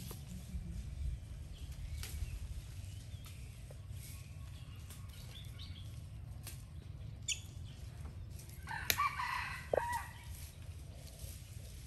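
A single drawn-out animal call about nine seconds in, bending in pitch and ending in a falling glide, with a short high chirp a little before it, over a steady low rumble.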